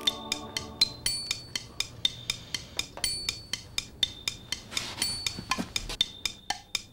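Kitchen timers ticking rapidly and steadily, about four sharp, slightly ringing ticks a second.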